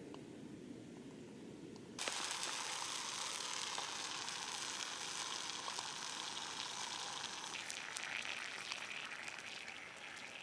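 Water in a stainless steel vessel over a small camping stove, boiling hard: a steady sizzling, bubbling hiss that comes in suddenly about two seconds in, after a low rumble. It is at a rolling boil.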